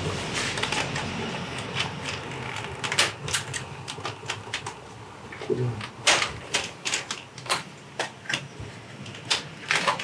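Irregular sharp clicks and clatter of hard plastic parts as a hand screwdriver works on the screws of a wall air conditioner's plastic louver-vane assembly and the vanes are handled.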